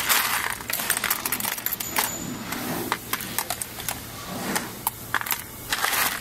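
Cracked candlenut shells clattering as a hand rakes and scoops through a heap of them in a plastic crate: a dense run of small hard clicks and rattles, heaviest at the start and again near the end.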